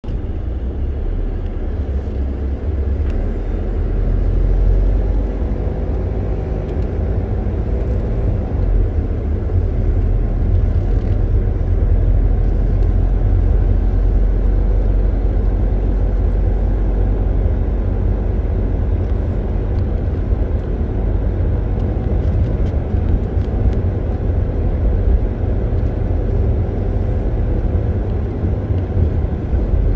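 Car driving along a road: a steady low rumble of engine and tyre noise that swells slightly a few seconds in and then holds.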